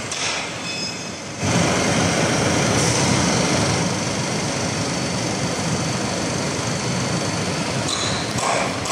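CNC fabric cutting machine running, a steady mechanical noise that gets louder about a second and a half in and then holds even.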